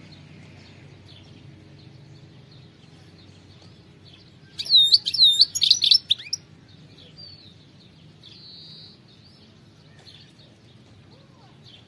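Male European goldfinch calling: a loud burst of quick, swooping high notes about four and a half seconds in, lasting under two seconds. Softer twittering runs around it, and a short buzzy note comes a couple of seconds after the burst.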